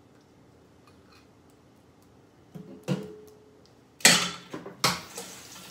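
A soft knock about three seconds in, then a kitchen tap turned on about four seconds in, with water running and splashing into the sink.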